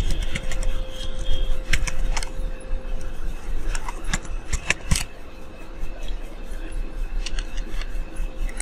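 Computer keyboard keys clicking at an uneven pace as a command is typed, over a steady low hum.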